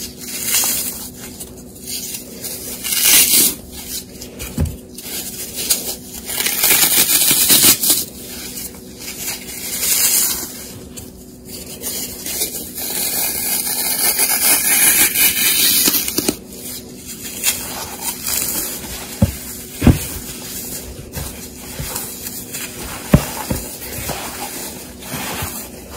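Sahara dry floral foam crunching and crumbling as gloved hands crush and break the blocks and rub through the crumbs, in irregular bursts of crackling with a few sharp snaps.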